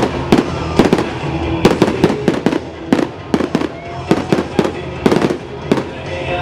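Fireworks shells bursting in a rapid string of sharp bangs and cracks, several a second, over the show's music soundtrack.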